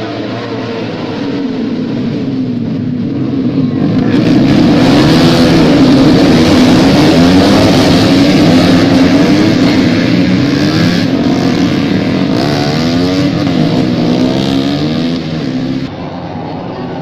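Several racing motorcycles running at high revs as they pass, their engine notes rising and falling and overlapping. The sound builds about four seconds in and drops off suddenly near the end.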